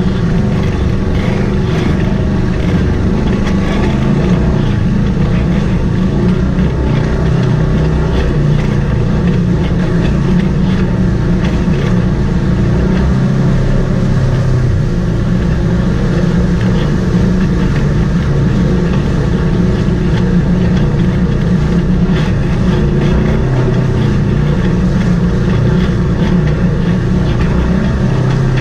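Side-by-side UTV engine running steadily under load as the machine crawls over a rocky, wet trail, with scattered knocks and rattles from the vehicle jolting over stones.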